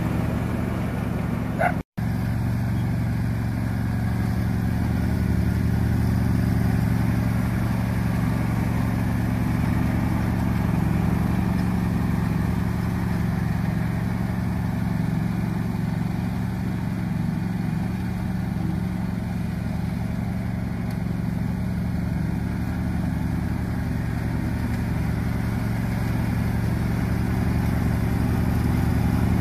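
John Deere riding lawn mower's engine running at a steady speed as the mower drives across the lawn, a constant low drone with no changes in pitch. The sound cuts out completely for a split second about two seconds in.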